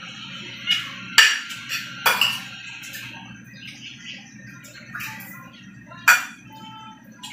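Metal spoon and fork clinking and scraping against a ceramic plate while eating, with a few sharp clinks, the loudest about a second in and again near the end, over a steady low hum.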